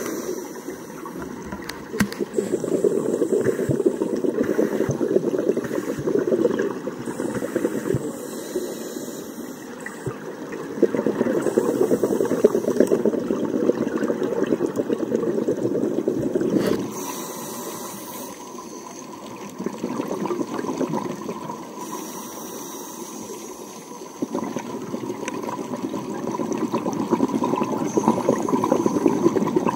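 Scuba regulator exhaust bubbles heard underwater: several long bubbling exhales of a few seconds each, with quieter pauses between them while the diver breathes in.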